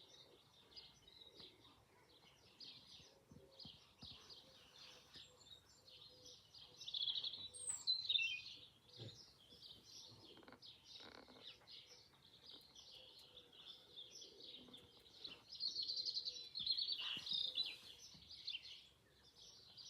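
Small songbirds chirping and twittering continuously, with louder bursts of song about seven seconds in and again about sixteen seconds in.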